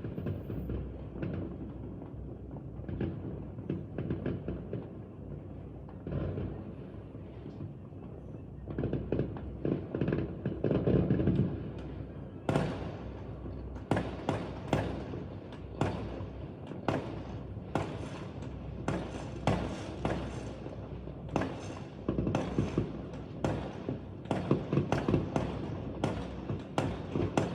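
Fireworks going off: scattered bangs over a low rumble at first, then a rapid run of sharp bangs and crackles from about halfway through.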